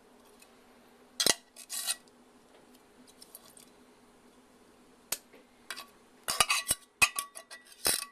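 Metal utensils and a can clinking and knocking against a dish as canned green beans are added. Two clinks come about a second in, then a quicker run of sharp clinks from about five seconds in, some ringing briefly.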